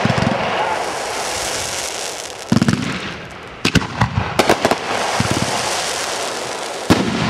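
Aerial fireworks bursting: a string of sharp bangs, the first about two and a half seconds in, several close together around four seconds and another near the end, with a steady hissing rush between them.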